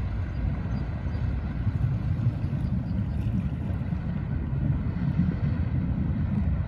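Wind buffeting the microphone in a low, uneven rumble, with the drone of a passenger ferry's engine under it.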